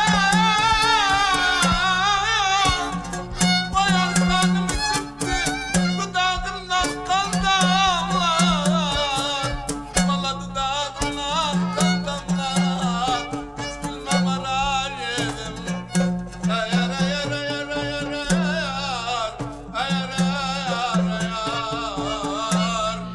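Live Middle Eastern folk music: a wavering, vibrato-laden lead melody over a repeating low drum beat.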